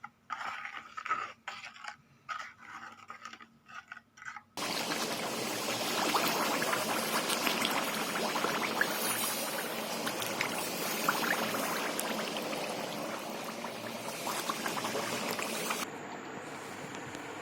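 Liquid panchagavya ghee mixture making a steady, crackly liquid noise that starts abruptly about four and a half seconds in and drops lower near the end.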